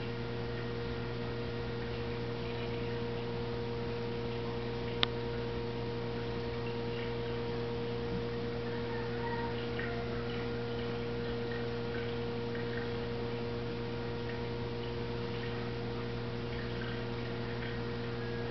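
Steady electrical hum of aquarium filter equipment, with faint trickling and dripping water and light ticks. A single sharp click about five seconds in.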